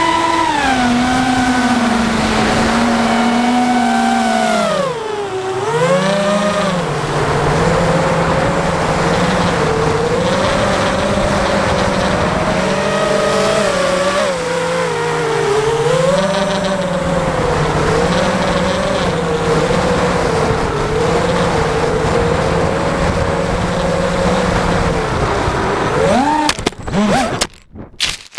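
Electric motor and propeller of a Minion FPV flying wing, a steady whine over wind rush whose pitch drops, dips and rises as the throttle changes. Near the end the tone sweeps wildly and breaks off in stutters as the plane crashes.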